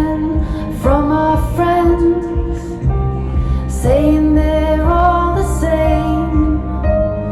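Recorded song with a female lead vocal over a deep, sustained bass line, played back through Avantgarde TRIO G3 horn loudspeakers driven by Air Tight tube amplifiers. The voice sings phrases that each slide up into the note, about every one to three seconds.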